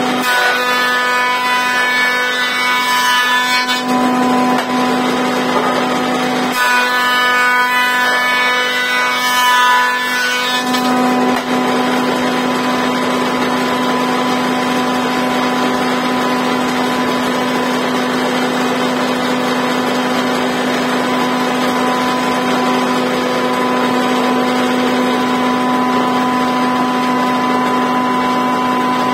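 Elu 176 DAH combination woodworking machine running with a steady hum, planing a board in two passes: from the start to about 4 seconds in, and again from about 7 to 11 seconds in. After that the machine runs on unloaded.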